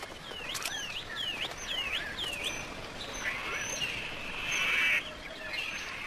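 Azure kingfisher calling: a run of about five short, high, squeaky call notes in the first two seconds, then a longer, denser twittering from about three to five seconds in.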